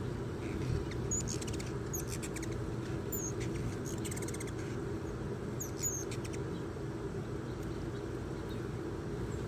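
Ruby-throated hummingbirds giving high, squeaky chip and chatter calls in several short bursts between about one and six seconds in, over a steady low background hum.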